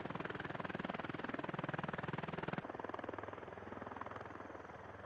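V-22 Osprey tiltrotor's proprotors beating with a rapid, even chop. About halfway through the sound drops abruptly to a quieter, thinner rotor beat.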